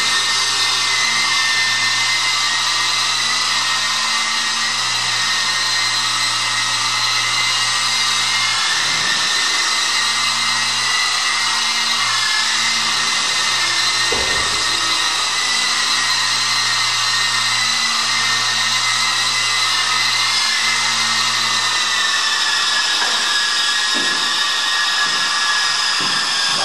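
Walkera 5G4 micro RC helicopter's electric motor and rotors whirring with a steady high-pitched whine while it hovers, the pitch wavering slightly. A brief knock comes about halfway through, and the whine drops a little in pitch near the end as the helicopter settles onto the floor.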